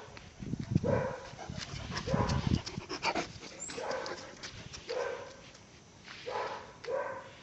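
Caucasian Shepherd Dog giving a string of about seven short pitched calls, somewhere between whines and soft barks, spread over several seconds. A low rumble runs under the first couple of seconds.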